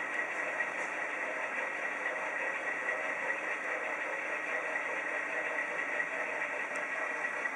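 HO-scale model train running on a layout: a steady whir of the freight cars' wheels on the rails, mixed with engine sound from DCC sound-equipped model locomotives.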